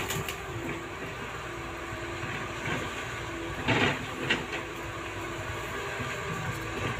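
Caterpillar 312D hydraulic excavator running steadily as it digs, a continuous engine drone with a held tone, and a short clatter followed by a sharp knock about four seconds in.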